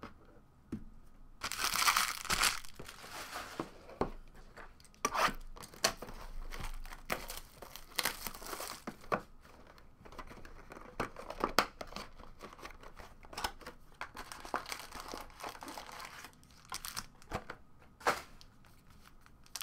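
Trading-card pack's foil wrapper torn open and crinkled, with a longer tear about a second and a half in, followed by scattered crinkles and the clicks of cards being handled and slid against each other.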